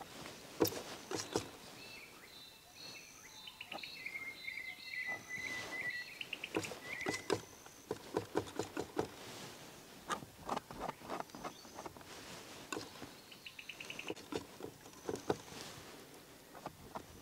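Palette knife dabbing and scraping oil paint onto a canvas: a run of short, sharp taps and scrapes. Birds call and chirp behind it, with a rapid trill about four seconds in.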